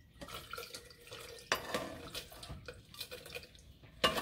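Fried dried chiles de árbol and their oil slid from a frying pan into a glass blender jar with a slotted spoon: crackly rustling and dripping, with a sharp knock about a second and a half in and a louder knock near the end.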